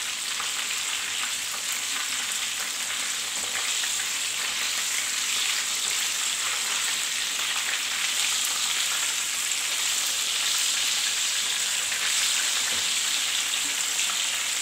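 Chicken nuggets frying in hot oil in a frying pan: a steady sizzle with small scattered crackles.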